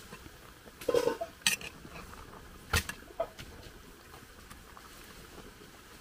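Metal ladle clinking and scraping against an aluminium cooking pot while stirring soup, a handful of sharp clinks in the first three seconds or so.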